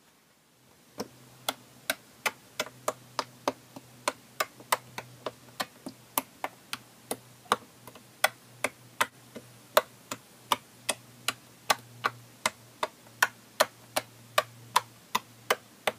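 A fast, fairly even series of sharp ticking clicks, about two to three a second, some louder than others, over a faint steady low hum.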